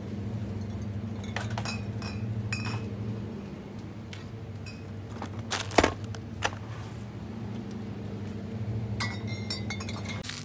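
Glass bottles clinking as they are lifted off a shelf and set against one another, with short ringing chinks in two spells and one loud knock just before the middle as a bottle is dropped into a plastic shopping basket. A steady low hum runs underneath.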